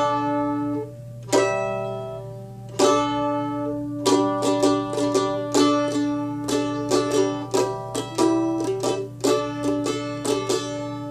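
Mandolin picked solo, playing a simple melody: a few ringing notes and chords spaced out at first, then quicker picked notes from about four seconds in.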